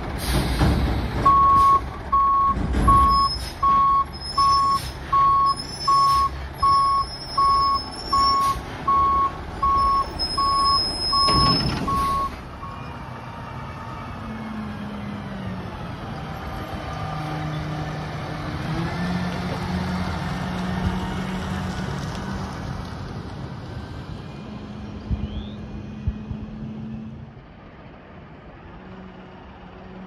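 Front-loader garbage truck backing up: its reverse alarm beeps about fifteen times at a steady pace, a little faster than one a second, with high squeals and short bursts of air-brake hiss at the start and end of the beeping. Then the truck's diesel engine runs as it drives off, getting quieter about three seconds before the end.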